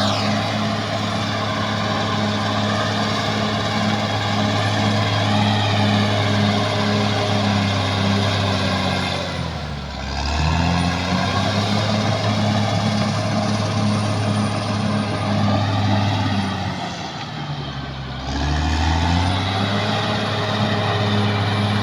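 Caterpillar D6R XL bulldozer's diesel engine running, its engine speed dropping and picking back up twice, midway and again a few seconds later.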